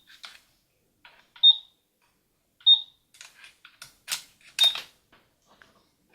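Toy portable credit card reader of a Barbie Blinging Cash Register beeping three times, short high beeps about a second or two apart, as a card is run through it. Light plastic clicks and taps come between the beeps.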